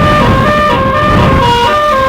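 Bus's basuri multi-tone musical horn playing a 'telolet' tune: several horn notes sounding together as chords that step up and down in pitch every fraction of a second, over a low rumble.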